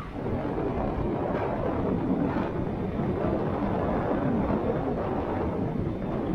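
Wind rushing over the microphone of a moving e-bike, a steady rough noise with the hum of travel along the road.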